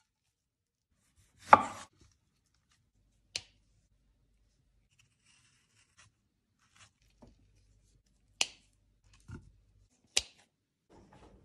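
Kitchen knife cutting fruit on a wooden cutting board, with kitchen scissors snipping a mint sprig near the end: about four sharp, separate chops and clicks, plus a couple of fainter ones, with quiet between.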